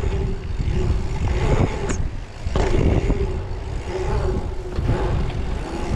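Dirt jump bike rolling over an asphalt pump track: steady tyre roar and wind buffeting the microphone, with a few light knocks from the bike and a short lull about two seconds in.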